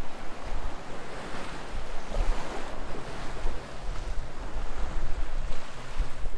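Seawater rushing and washing past a sailing yacht's hull under sail, with wind gusting on the microphone.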